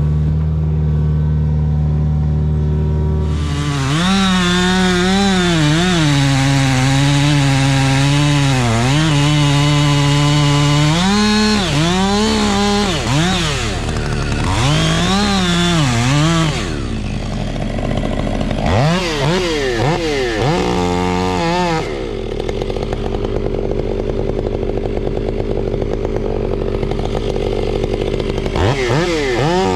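Two-stroke chainsaw running at a low steady speed, then opened up to full throttle about three seconds in and cutting. Its pitch sags and recovers repeatedly as the chain loads in the wood. Past the middle it gives several short revs, settles to a lower steady speed, and revs up again near the end.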